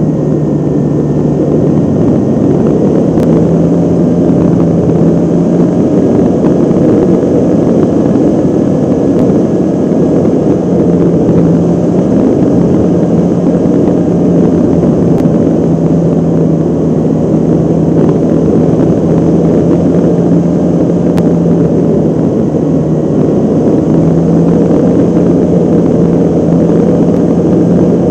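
Radio-controlled airplane's motor and propeller heard from a camera mounted on the plane in flight, a steady loud drone mixed with wind rush over the microphone. The low hum steps slightly up and down in pitch a few times as the throttle changes.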